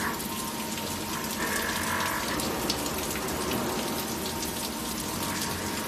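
5-axis CNC milling machine cutting under flood coolant: coolant spraying and splashing over the spinning cutter and workpiece, with a steady machine whine and a higher cutting tone that comes and goes, about a second and a half in and again near the end.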